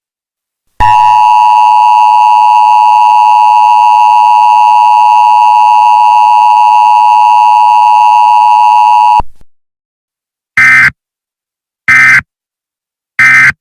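Emergency Alert System tones: a steady electronic alert tone held about eight seconds, which then cuts off. Three short bursts of SAME data tones follow, evenly spaced a little over a second apart: the end-of-message signal that closes an alert.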